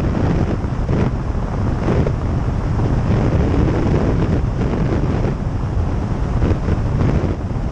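Airflow rushing over a camera mounted under the wing of a light aircraft in flight, buffeting the microphone: a loud, unbroken wind rush heaviest in the low end.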